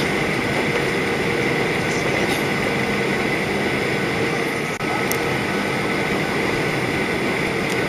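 Steady cabin noise inside a Boeing 737-800 airliner in flight: the drone of its jet engines and the airflow over the fuselage, with a few steady tones riding on top. The sound drops out for an instant about five seconds in.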